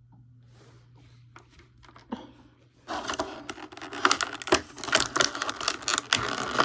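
Plastic packaging crinkling and rustling as it is handled, starting about three seconds in after a few faint clicks.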